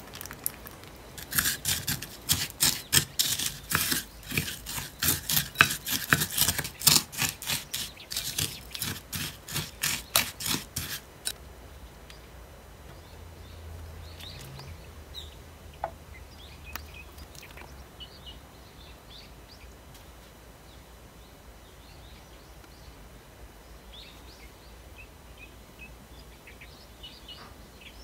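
A utensil stirring buttery Lotus biscuit crumbs in a glass bowl: a quick run of scraping strokes against the glass, two or three a second. It goes on for about ten seconds, then stops.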